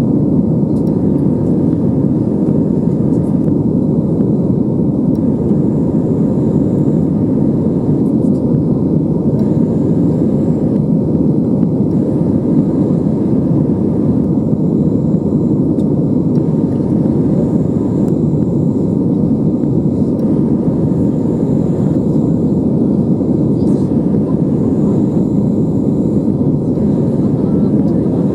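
Steady, deep engine and airflow noise inside the cabin of an Airbus A320 climbing after takeoff, even in level with no changes.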